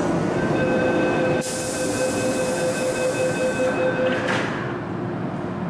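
MTR Island Line underground train running through the station: a loud steady rumble of wheels on track with several steady high whining tones. A high hiss comes in about a second and a half in and stops about two seconds later, and the whining fades about four seconds in.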